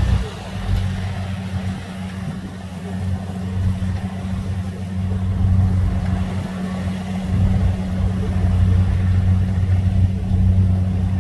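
Kubota DC70 combine harvester's diesel engine running steadily under load as it cuts and threshes rice: a continuous low hum.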